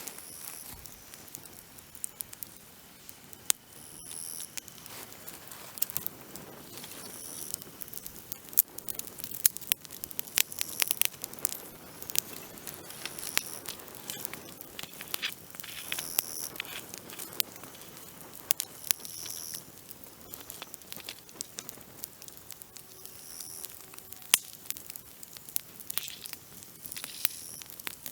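Campfire of dry branches crackling, with irregular sharp pops and snaps over a steady hiss. A short high chirp recurs every few seconds.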